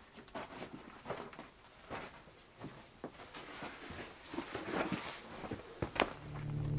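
Footsteps on sandstone grit with the rustle of a nylon backpack being swung off the shoulder, and scattered light clicks and scuffs. Near the end a sharp click, then a steady low hum starts.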